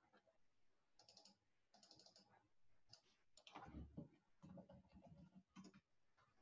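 Faint computer-keyboard typing: short bursts of keystrokes as router commands are entered, with one heavier, lower knock about halfway through.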